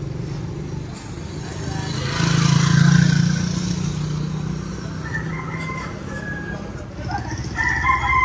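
Street traffic: a steady engine hum that swells as a motorcycle passes about two to four seconds in. Near the end a rooster starts crowing.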